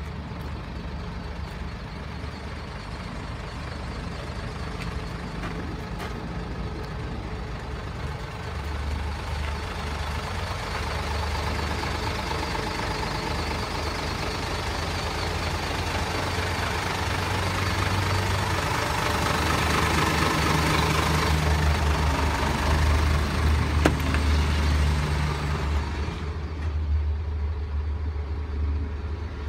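Hino J08E six-cylinder turbo-diesel truck engine idling steadily, growing louder with a rising hiss about a third of the way in, then heard muffled from inside the cab near the end.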